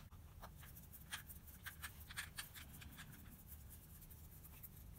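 Faint, irregular small clicks and scrapes of a screwdriver turning the two small screws of the fastening plate on a Mikuni BS34 carburettor's diaphragm and slide assembly, doing them up hand tight.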